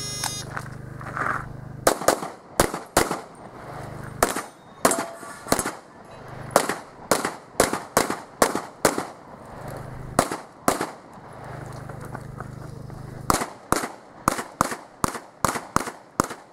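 A shot timer beeps once, then a pistol fires in rapid strings of shots a few tenths of a second apart, with pauses of a second or more between strings and a fast run of shots near the end. A low steady hum sits under the pauses.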